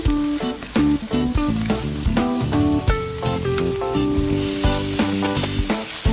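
Bacon and onions sizzling in a stainless steel frying pan as they are stirred with a wooden spatula, under background music with a steady succession of plucked notes.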